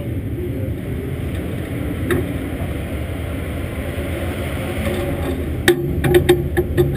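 Dirt late model's V8 race engine idling, heard from inside the car, with a few sharp knocks near the end.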